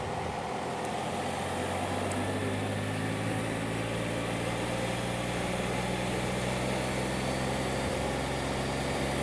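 An engine idling steadily, its low hum growing a little stronger about two seconds in.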